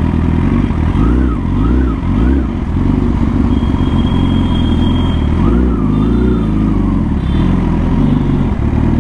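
Superbike's inline-four engine running at low speed and near idle while the bike creeps along. Its note rises and falls a couple of times, about a second in and again past the middle.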